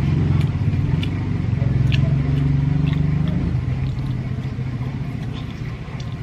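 Low steady hum of an engine running nearby, strongest for the first three and a half seconds and then weaker. Over it come faint clicks of chewing and of roasted chicken being torn apart by hand.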